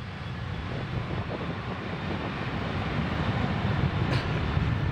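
Boeing 737-700's CFM56-7B jet engines running as the airliner rolls along the runway, a steady rushing noise with a low rumble that grows gradually louder.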